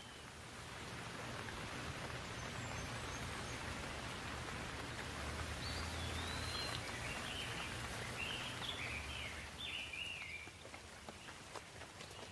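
Steady rain falling, swelling about a second in, with a songbird singing short, quick whistled phrases in the middle and a few single drops ticking near the end.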